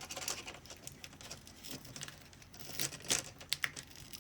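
Crinkling and rustling of adhesive tape being worked loose by hand on a laptop screen assembly, mixed with irregular small plastic clicks and taps.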